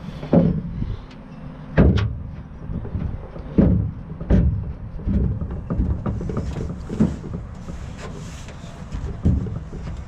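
Pickup truck tailgate being worked off its hinge pivots by hand: a string of irregular clunks and knocks, about seven over several seconds, over a low rumble.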